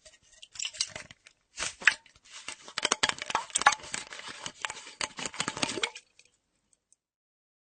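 Metal flask's screw cap being turned on its threads, a dense run of quick rasping clicks and scrapes that stops about six seconds in.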